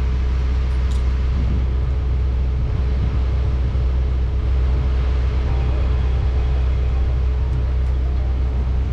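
Heavy diesel equipment engine running steadily, a constant low drone with an unchanging pitch.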